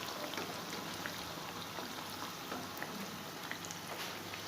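Chebakia-shaped yeast dough deep-frying in hot oil over a lowered flame: a steady sizzle with scattered small crackles and pops.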